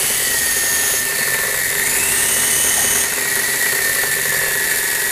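Small electric motors and gearing of a toy helicopter on a Lego Technic rig whirring steadily, with a high whine that shifts slightly in pitch about two and three seconds in.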